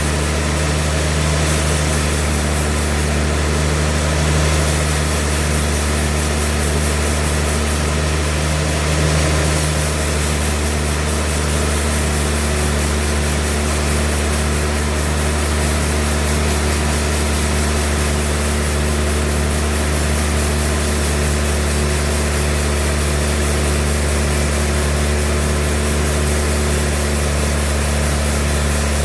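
Sawmill machinery running steadily: a deep, unchanging engine drone with a steady hum over it.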